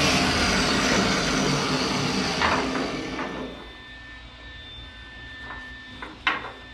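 A loud hissing rush that dies away about three seconds in, then a few sharp metal clinks over a faint steady hum.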